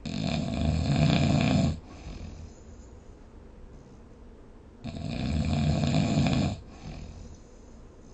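A person snoring: two long snores about five seconds apart, each lasting nearly two seconds and followed by a softer breath.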